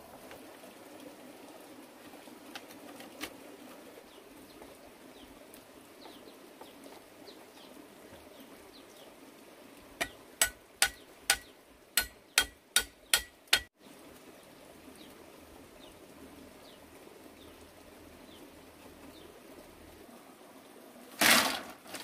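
Eight quick, sharp blows on a green bamboo pole, about two a second, over a faint steady forest background. Near the end, one brief, louder rustling clatter, the loudest sound here.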